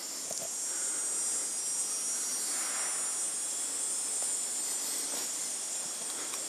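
Steady high-pitched hiss of background noise, with no distinct event in it.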